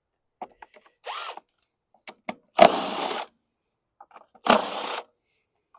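DeWalt cordless driver fitted with a 10 mm bit, run in three short bursts to back out the bolts holding a Kohler engine's recoil starter. The first burst is brief; the next two last about half a second each. Light clicks of handling fall between them.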